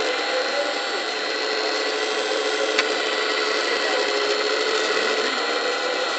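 Electric hydraulic pump of a 1:14.5 scale Wedico CAT 345 D LME RC excavator whining steadily as the machine digs, with one sharp click about three seconds in.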